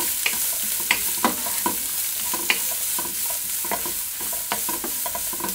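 Sliced onions and curry leaves frying in coconut oil in a non-stick wok, sizzling steadily as they are sautéed, with a wooden spatula scraping and tapping against the pan every second or so as it stirs them.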